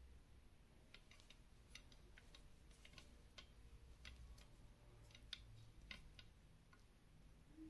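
Faint, irregular light clicks and taps of brass plumbing fittings being handled and screwed together on a homemade airgun's valve.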